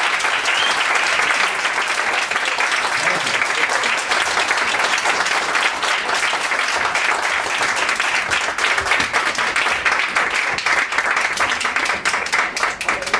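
Audience applauding a live flamenco performance, a dense, steady clapping. In the last second or so the applause thins and separate claps stand out.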